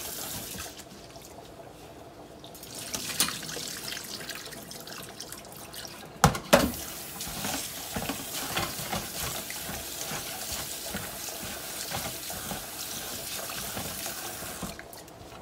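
Kitchen tap running into a bowl of rice in a stainless-steel sink while a gloved hand swishes the grains to wash them, with a quieter gap in the first couple of seconds as the rinse water is tipped off. Two sharp knocks about six seconds in.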